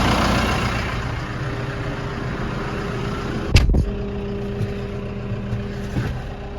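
Tractor engine idling steadily, with one loud thump about three and a half seconds in and a lighter knock near the end.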